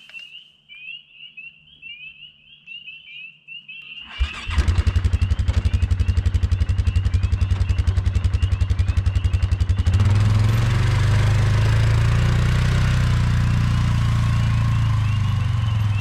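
ATV engine starting about four seconds in, then idling with a rapid, even beat. About ten seconds in it gets louder and smoother as it revs up to drive off.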